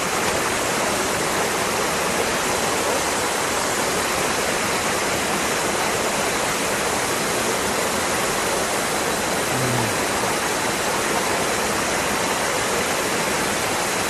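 Na Muang waterfall in heavy flow after recent heavy rain, its water crashing down and rushing over the rocks below: a steady, loud, even rush of falling water.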